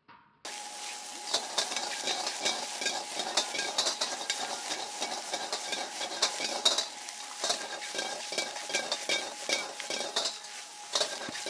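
Egg fried rice sizzling in a wok over a high flame, with a metal ladle repeatedly scraping and clanking against the wok as the rice is stirred and tossed. It starts suddenly about half a second in, and a faint steady tone runs underneath.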